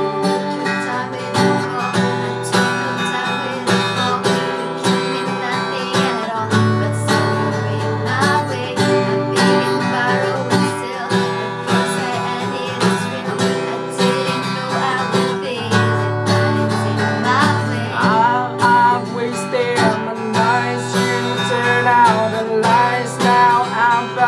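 Acoustic guitar strumming chords in a steady rhythm, with wordless sung vocal runs over it, mostly in the second half.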